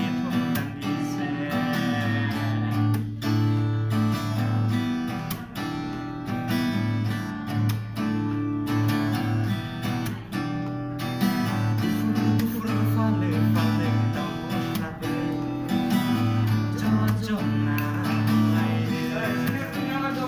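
Acoustic guitar strummed in a steady rhythm, chords ringing on.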